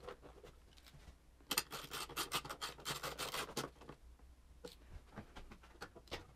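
A hand tool turning screws into a motocross bike's rear subframe: a burst of rapid scratching and clicking about one and a half seconds in, lasting about two seconds, then a few single clicks.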